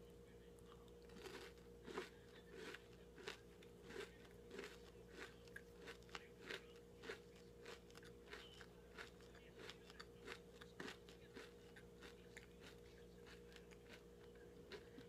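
Chocolate crunch bar being bitten and chewed: a run of crisp crunches, several a second at first, thinning out toward the end.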